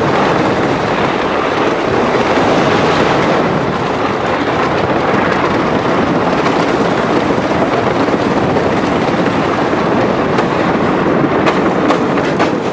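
Wooden roller coaster train running along its track, heard from the front seat: a steady loud rattling rumble of the cars with wind on the microphone, and a few sharp clacks near the end.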